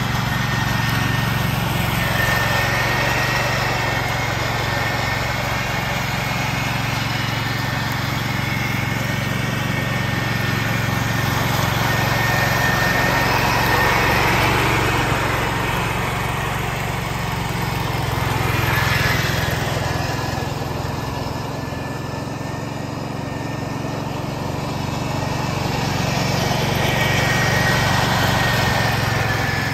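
1969 Ford 140 garden tractor running with its mower deck engaged, mulching leaves: a steady engine drone with a thin high whine over it, swelling louder each time the tractor passes close.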